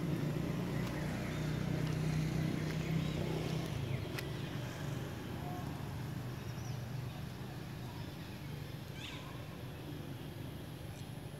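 Young long-tailed macaques giving a few faint, short high squeaks over a low, steady hum that slowly fades.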